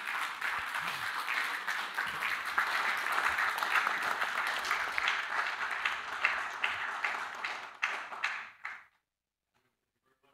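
Congregation applauding: many hands clapping at once, thinning to a few last claps and cut off about nine seconds in.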